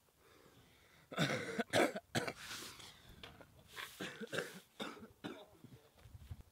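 A man coughing hard in a string of bouts and clearing his throat as he picks himself up after a fall onto concrete. The coughing starts about a second in and dies down near the end.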